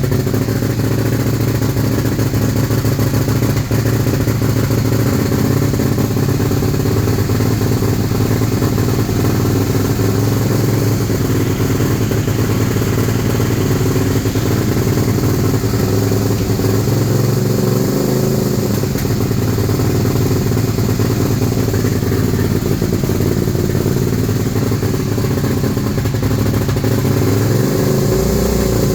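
2001 Suzuki SV650's V-twin engine running with a misfire, which the owner says has just started, together with backfiring.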